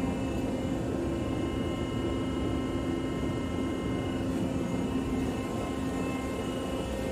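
Steady machinery drone with a constant low hum and a few fainter higher hum tones, unchanging throughout.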